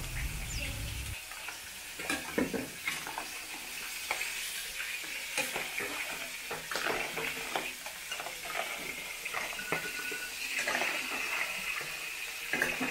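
Crab pieces in chilli sauce sizzling in a stainless-steel wok. A metal spatula scrapes and knocks against the wok again and again as they are stirred.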